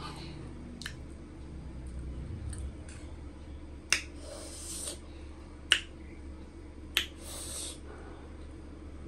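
Close-up eating sounds: chewing a mouthful of spicy noodles and boiled egg. Three sharp clicks come about four, six and seven seconds in, the first and last each followed by a short hiss of about a second.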